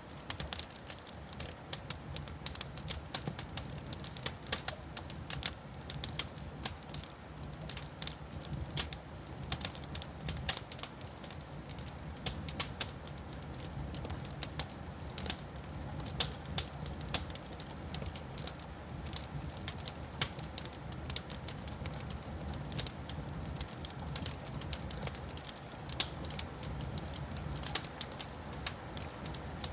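Wood fire in a fireplace crackling, with many sharp pops and snaps, irregular and close together, over a steady low rumble.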